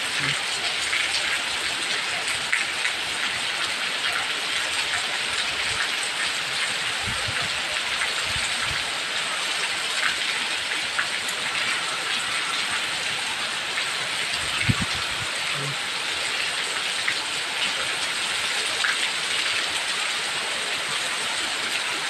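Heavy rain pouring down in a steady, dense hiss. A few brief low thumps come partway through and again later.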